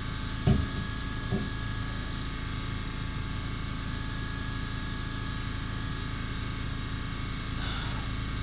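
Steady hum and hiss with a few level tones, broken by a short thump about half a second in and a softer one about a second later.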